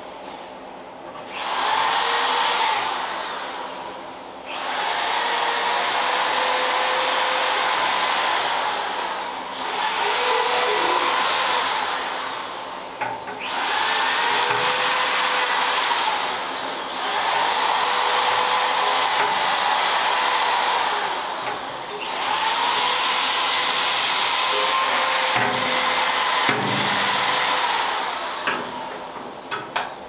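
A power tool running in about six stretches of a few seconds each, starting about a second in, with short dips and pauses between: a steady whine over a loud hiss.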